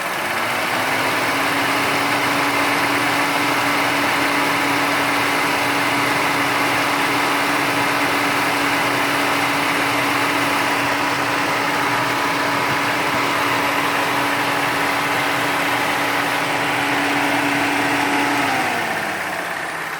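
Steady whistle from a car's air conditioning, over the engine idling: it comes in with a short rise in pitch as the AC is switched on, holds steady for about eighteen seconds, then glides down and fades.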